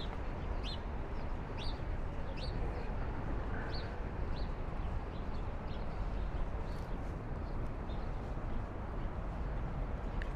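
A small bird chirping over and over, short sharp chirps about once a second that thin out after the first few seconds, over a steady low background hum of the city.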